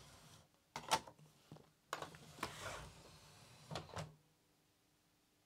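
A CD set into the tray of a Technics SL-PG100 CD player and its motorised disc drawer closing: a few light clicks and knocks, a short mechanical whirr, and two last clicks as the drawer shuts about four seconds in, with the loading mechanism working normally.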